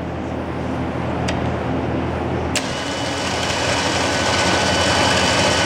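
Electric winch motor running as it winds its cable. About two and a half seconds in there is a click, and after it the motor's whine gets louder, with a steady high tone.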